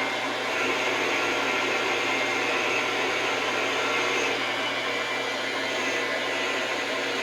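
Metal lathe running steadily while turning a vise handle blank, a constant motor hum with cutting noise.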